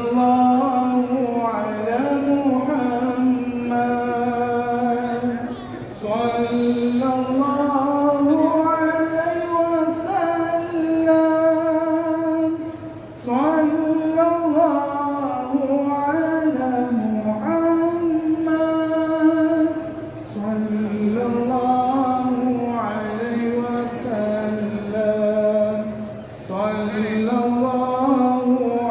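A single voice singing a slow melody in long, drawn-out, wavering notes. The song comes in phrases of several seconds each, with short breaths between them.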